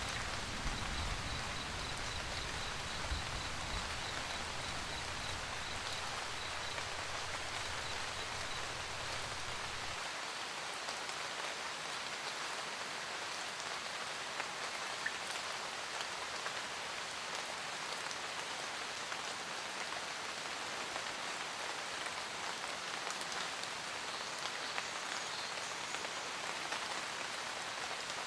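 Steady rain falling, with a low rumble underneath that cuts off abruptly about ten seconds in. A faint, quick high ticking, about four a second, runs over the first several seconds.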